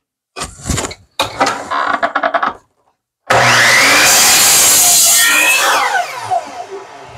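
Knocks and clatter as a wooden board is set against the fence, then a Craftsman compound miter saw starts about three seconds in and cuts through the board. Its blade then winds down with a falling whine near the end.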